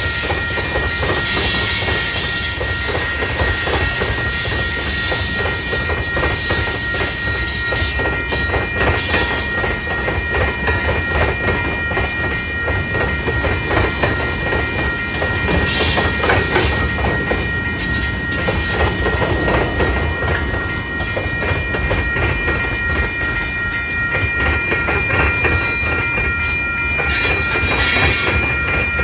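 Freight train of tank cars rolling past at a grade crossing: steady rumble and clatter of the wheels on the rails, with a thin steady high-pitched ringing tone throughout.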